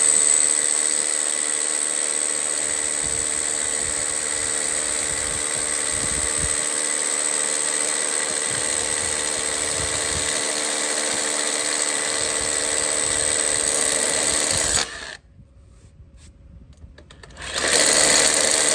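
Cordless hammer drill with a long masonry bit boring into a concrete slab, running steadily with a constant high whine. It cuts off abruptly about 15 seconds in and starts again briefly near the end, as the bit strikes buried rebar about two and a half inches down.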